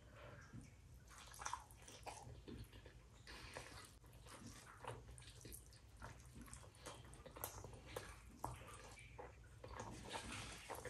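Faint, close-up wet eating sounds of rice and curry: an irregular run of soft wet clicks and smacks of chewing and handling food.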